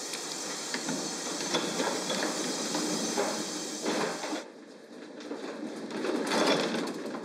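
Handling noise as steamed rice is worked and moved: a steady hiss with knocks and clatter that cuts off suddenly about four and a half seconds in. Near the end comes a louder scraping rumble as a wooden box of steamed rice is pushed across the floor.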